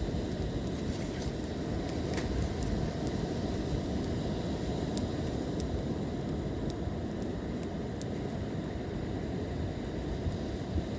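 Wood fire burning with a steady low rumble and scattered sharp crackles and pops.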